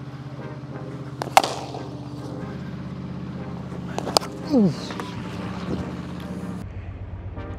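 Cricket bat striking a leather ball: a sharp crack about a second and a half in, then two more quick cracks around four seconds in.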